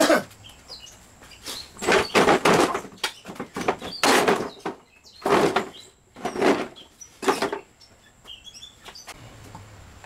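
Sheet metal and parts of a window air conditioner banging and scraping as the unit is pulled apart for scrap: a run of about six loud clanks and scrapes, each under a second long, ending about three quarters of the way through.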